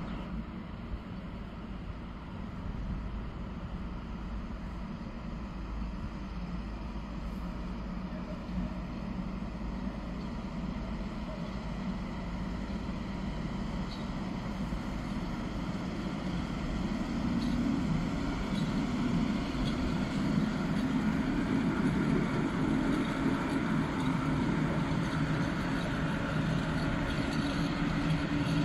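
PKP Cargo ET22 electric freight locomotive and its wagons rolling past, a steady low hum and rumble that grows louder as the train nears and is loudest near the end.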